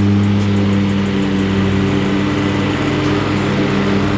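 Kohler EFI engine of a 60-inch Exmark Turf Tracer walk-behind mower running at a steady speed while mowing, with an even drone that does not change.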